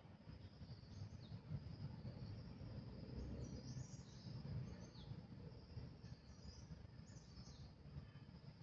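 Faint woodland ambience: scattered short, high-pitched bird chirps over a steady high hiss and a low rumble.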